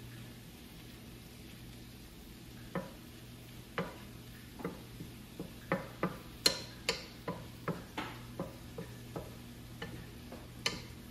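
Spatula knocking and scraping against a frying pan while an egg omelet cooks. The knocks are spaced at first, then come quicker, about two or three a second, from about halfway, over a faint steady hum.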